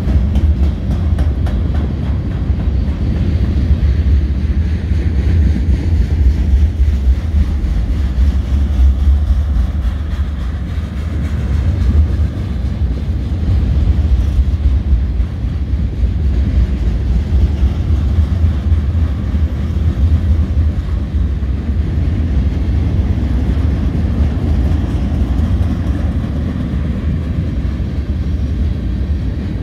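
Freight train flatcars rolling past close by, steel wheels on rail making a loud, steady low rumble.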